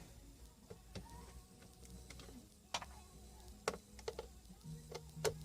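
Scattered light clicks and taps as screws are taken out of a plastic console unit with a screwdriver, over a faint low hum.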